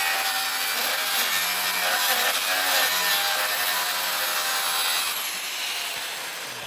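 Steady rasping of a tool working steel, which fades gradually over the last second or two.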